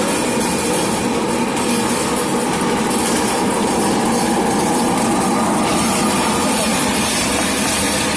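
Popcorn processing machinery running with a steady, loud mechanical din.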